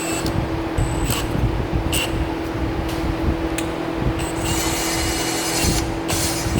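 Electric drill spinning an engine valve against its seat to lap it with grinding compound: a steady motor whine with a gritty grinding of valve on seat that comes and goes.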